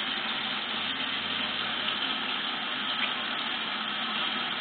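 Steady background hiss with a faint low hum that comes in about a second in.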